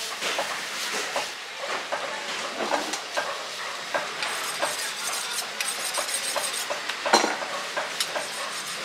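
Butcher's knife cutting pork and scraping along the rib bones, a run of small irregular clicks and scrapes with a louder knock about seven seconds in.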